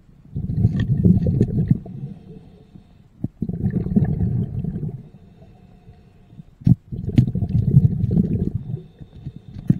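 Underwater rumble of a scuba diver's exhaled bubbles from the regulator, coming in three bursts of about a second and a half with quieter pauses between breaths. A few sharp knocks come in between, the loudest just before the third burst.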